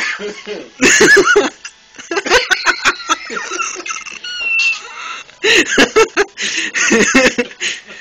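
A group of people laughing and chattering, several voices at once in uneven bursts.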